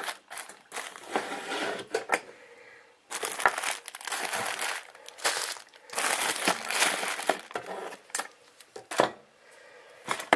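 Crinkling and rustling of things being handled on a table, in three bouts, with a few sharp clicks and knocks.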